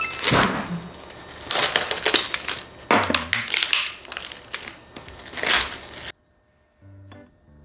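Clear plastic cling wrap being peeled off a meat tray and crumpled by hand, in loud, irregular crinkling. It cuts off suddenly about six seconds in, and soft background music follows.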